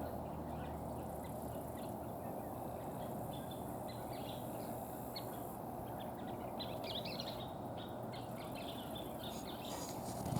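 Scissor-tailed flycatchers calling: many short, sharp chips and twitters, coming thicker a little past the middle, over a steady low background rumble.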